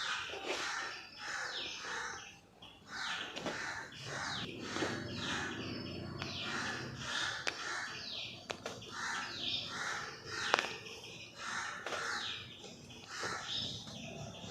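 Crows cawing over and over in quick succession, with a few sharp clicks among the calls, the loudest about ten seconds in.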